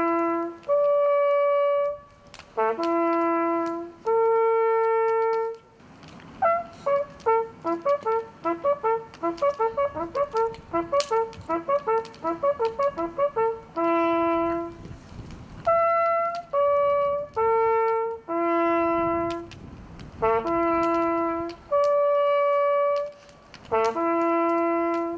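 Hunting horn blowing signals: long held notes on only a few pitches, with a run of quick short notes in the middle. These are the calls of a driven hunt's closing ceremony honouring the game.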